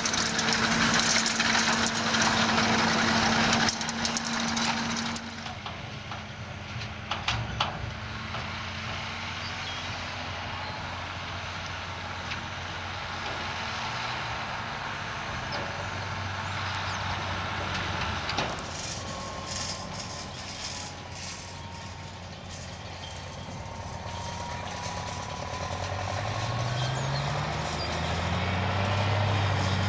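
Farm machinery engines running: at first a tractor and twin-rotor grass rake, loud, with a steady low tone. Then a quieter tractor towing a silage trailer. Near the end comes the engine of a John Deere 8800 self-propelled forage harvester, its pitch rising.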